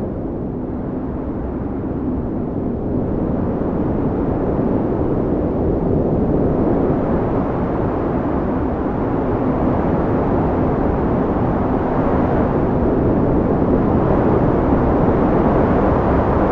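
FPV quadcopter's Xing 2207 1800kv brushless motors and propellers running in flight, heard through the onboard DJI O3 air unit as a steady whirring rush mixed with wind noise, with a faint hum that comes and goes and a slight swell in loudness toward the end.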